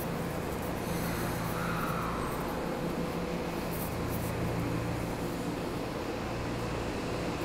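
Steady low rumble and hum of an underground subway station, with a few faint clicks.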